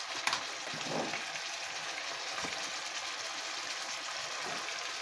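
Diced chicken thigh fillet sizzling in oil in a non-stick frying pan, a steady even hiss.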